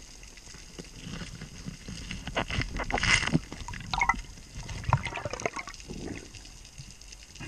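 Underwater water sounds, bubbling and trickling, with irregular knocks and scrapes as a hooked rod and gloved hand work an octopus out of a rocky hole. A cluster of louder knocks comes about three seconds in.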